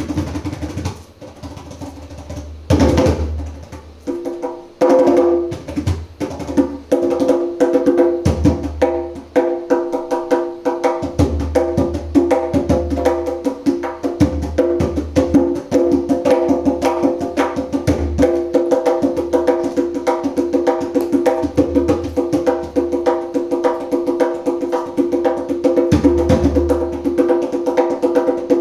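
Djembe played with bare hands: quick runs of sharp slaps and open tones, with deep bass strokes every few seconds. The playing is softer and sparser for the first few seconds, then settles into a fast, dense rhythm.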